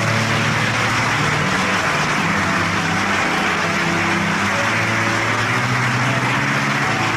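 Audience applauding loudly, a dense steady clapping that breaks in as the singing stops, with the orchestra's low sustained chords still sounding underneath.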